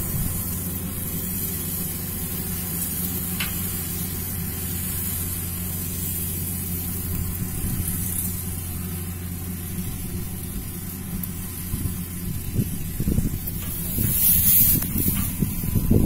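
Kubota KAR97 combine harvester running steadily under load while cutting paddy, an even engine hum. Louder irregular rustling noise breaks in over the last few seconds.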